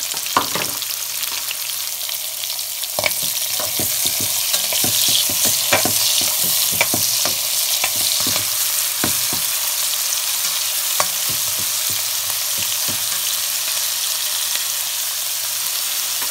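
Chopped red onions and garlic sizzling in hot oil in a pan, with a steady hiss. A perforated metal spatula stirring them scrapes and clicks against the pan, most often between about three and thirteen seconds in.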